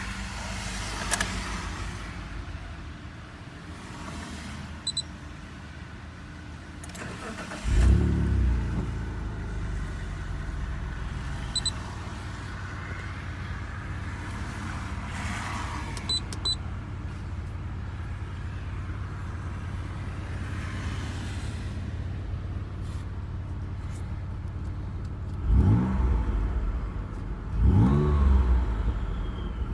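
Mitsubishi Galant VR-4 engine idling, blipped once at about eight seconds and twice near the end. A whistle rises and falls with the revs.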